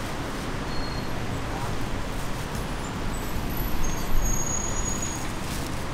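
Steady road traffic noise from cars and motorbikes passing on a city street, swelling briefly about four seconds in, with a short high whine at the same moment.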